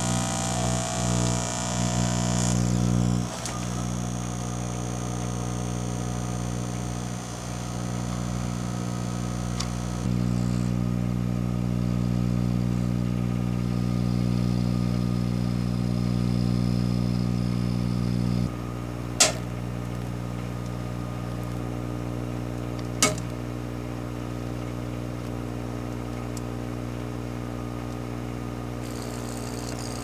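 Microwave oven running with a steady electrical hum while a pocket LCD TV cooks inside. A higher hiss fills the first ten seconds, the hum drops in level a little past halfway, and two sharp snaps come about four seconds apart.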